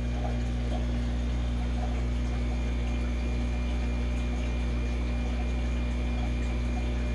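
Steady low electrical hum of aquarium pumps and filters, with a constant wash of running water.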